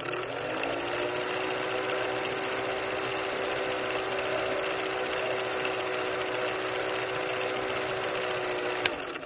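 A steady mechanical hum with a few constant tones, which settles to a fixed pitch within the first half second. A single sharp click comes near the end.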